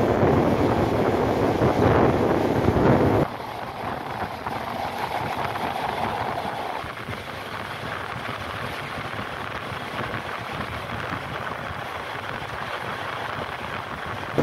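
Passenger train running along the rails, with air rushing past an open window. The noise is loud for the first three seconds or so, then drops suddenly to a quieter, steady rush.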